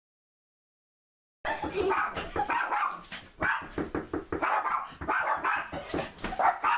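Pet dog barking repeatedly in quick, sharp barks, starting about a second and a half in.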